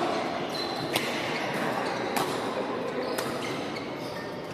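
Badminton rackets striking a shuttlecock in a rally: three sharp hits about a second apart, echoing in a large hall over a steady din of other games.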